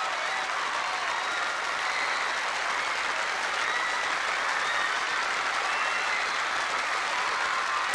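Audience applauding and cheering steadily, with a few faint high shouts over the clapping.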